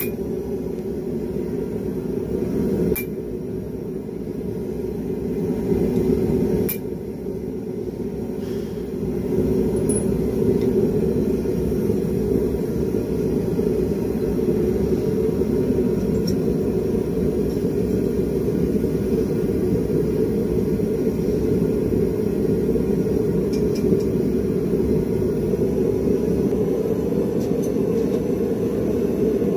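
Forge running with a steady low roar, with a few sharp metal clicks in the first seven seconds.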